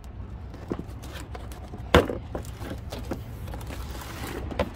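A cardboard box being cut open with scissors and unpacked: scattered taps, rustles and clicks, with one sharp knock about two seconds in.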